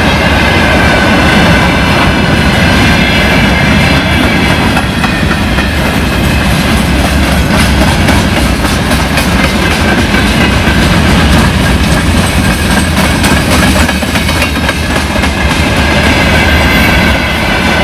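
Freight train of open gondola wagons rolling past at speed, the wheels clattering rapidly over the rail joints, with a steady high-pitched ringing tone and a low rumble throughout.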